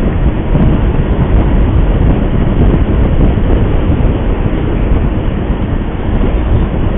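Steady rushing road and wind noise from a vehicle on the move, loudest in the low end, with no separate engine note or distinct events standing out.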